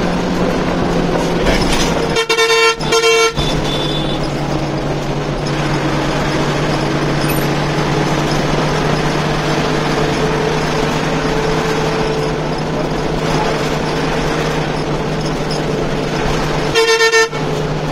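Hanif coach bus running steadily at highway speed, heard from the front of the cabin as a constant engine drone. The horn sounds twice in quick succession about two seconds in, and once more near the end as the bus closes on the vehicles ahead to overtake.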